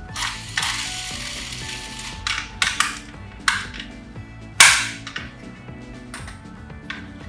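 Toy police cars clattering: a rattling slide about half a second in, then a run of sharp plastic-and-metal knocks, the loudest near the middle, over faint background music.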